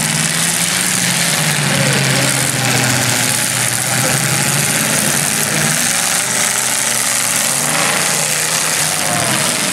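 Straight-stock demolition derby cars' engines running together, loud and steady, with their pitch wavering a little over a dense wash of noise.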